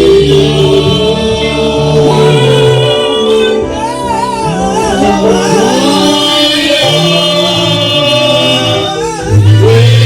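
Men and women singing a gospel hymn together, with long held chords underneath.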